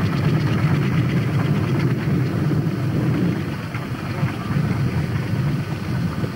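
Motorcycle engine running with a steady low rumble, which eases a little about halfway through.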